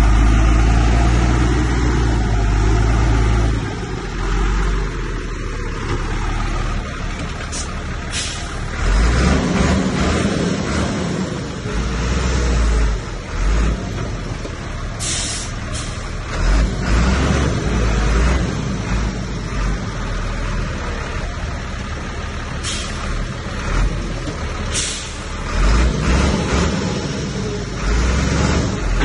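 Heavy diesel earthmoving machinery at work: a bulldozer's engine rumbling under load with uneven low thumps, and several short sharp hisses scattered through it.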